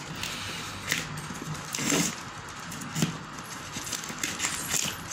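Plastic parcel wrapping rustling and crinkling as it is handled and slit open with a box cutter, with louder crackles about one, two and three seconds in.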